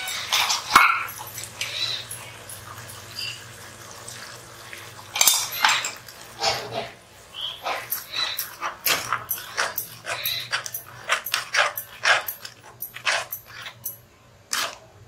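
A metal spatula scraping and clacking against a nonstick kadhai as tomato paste is stirred into a curry. The strokes are scattered at first, then quick and dense from about eight seconds in, stopping just before the end.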